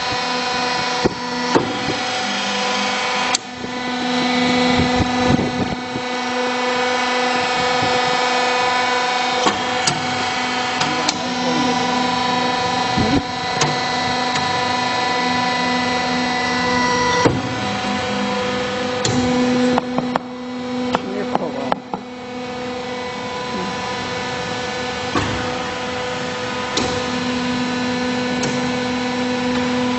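Sawdust wood-block press machine running: a steady machine hum with scattered clicks and knocks, the hum dropping away briefly a few times.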